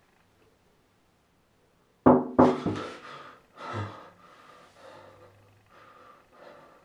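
Loud knocking on a door: three quick knocks about two seconds in and another about a second later, followed by a person breathing heavily.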